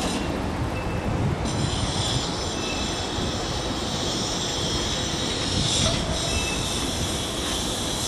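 A train crossing the steel railway bridge alongside: a steady rumble, with brief faint wheel squeals now and then.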